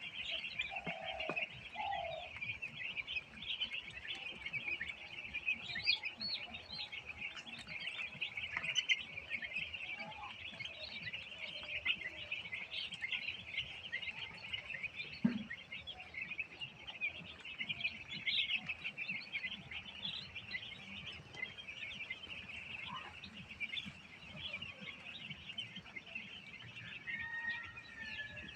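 A large flock of broiler chickens peeping and chirping all at once, a continuous high-pitched chatter of many overlapping short calls, with a few lower clucks scattered through it.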